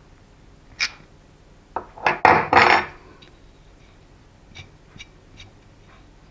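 Metal-on-metal clicks and scraping from a multi-tool working the pilot nut against the flywheel on a model engine's crankshaft. There is one sharp click about a second in, a loud burst of clicks and scrapes around two to three seconds in, then a few light ticks.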